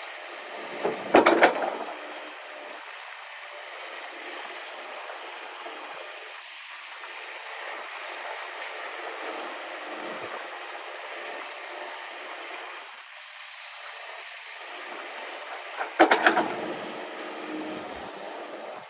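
Excavator running steadily, with two loud grinding, crunching bursts, about a second in and near the end, as it breaks up frozen, icy dirt.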